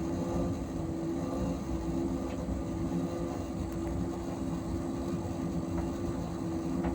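Asko tumble dryer running mid-cycle with a loud, steady hum and rumble. The uploader counts this as abnormally loud for a dryer. A couple of faint ticks sound over it.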